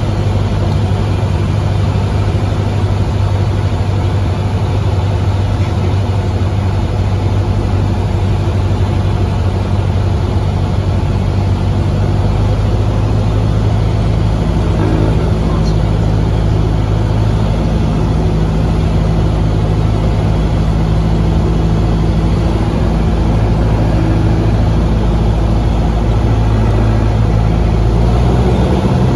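Single-engine propeller airplane's engine and propeller droning steadily, heard inside the cockpit on final approach to land. The pitch shifts slightly about halfway through and again near the end.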